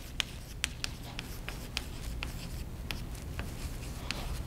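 Chalk tapping and scratching on a blackboard as words are written: a string of short, irregular taps over a low steady hum.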